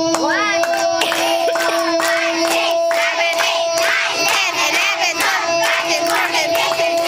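A crowd of children shouting and chanting together over a microphone, with hand clapping. A steady tone sounds underneath throughout.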